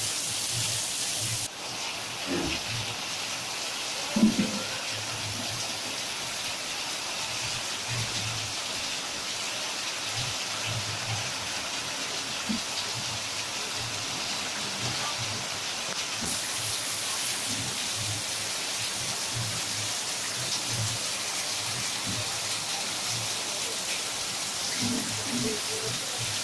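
Steady hiss of heavy monsoon rain falling, with a brief low thump about four seconds in.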